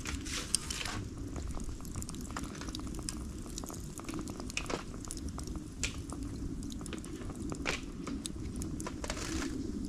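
Bonfire of cut bamboo crackling steadily, with sharp pops a few times and short spells of hissing near the start and near the end.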